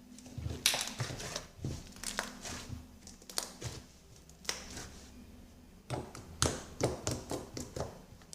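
Hands squeezing and kneading homemade glue slime, making irregular sticky clicks and pops.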